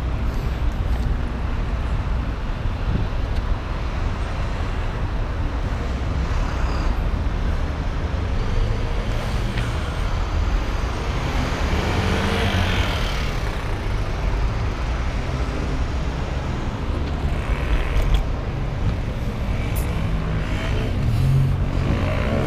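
City street traffic noise, steady throughout, with a motor scooter passing close about halfway through.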